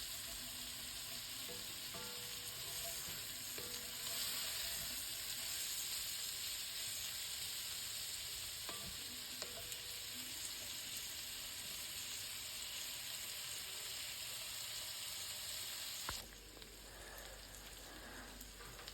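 Sliced onions sizzling gently in bacon fat in a pan as they sweat down with salt, with a few light ticks of a stirring spoon. The sizzle drops quieter about 16 seconds in.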